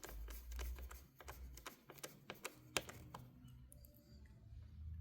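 Small clicks and taps of laptop parts being handled and fitted together during reassembly, with one sharper click a little after halfway; the handling sounds thin out in the last couple of seconds.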